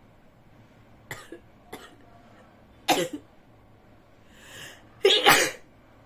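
A person sneezing: short bursts of breath about one and three seconds in, then a sharp intake of breath and one loud, forced sneeze about five seconds in.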